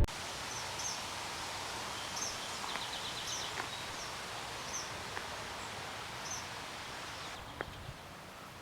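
A bird calling in short, high chirps every half second to a second, with a quick trill of about eight notes about three seconds in. A steady outdoor hiss lies under it.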